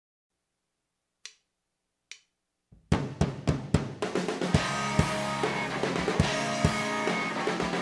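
Two sharp clicks, then the full rock band comes in about three seconds in: drum kit with snare and bass drum hitting together on a few opening accents, electric guitars and bass guitar, then playing on steadily.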